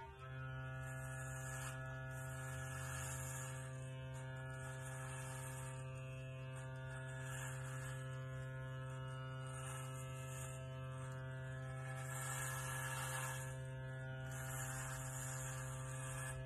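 Wahl electric hair clipper switched on and buzzing steadily, with about six bursts of higher hiss as the blade is drawn through short hair against the scalp.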